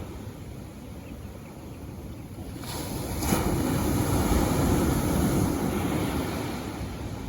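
Ocean waves washing onto the shore, with one wave building up a few seconds in and then fading, and wind buffeting the microphone.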